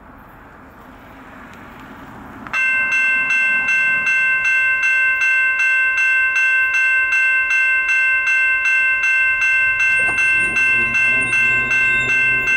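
Railroad grade-crossing warning bell switching on suddenly and ringing about three times a second, the signal that a train is approaching. A lower, steady tone joins in near the end.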